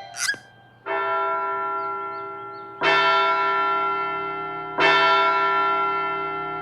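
A large bell tolling three times about two seconds apart, each stroke ringing on and slowly fading: a clock striking the hour, the sign that time is up.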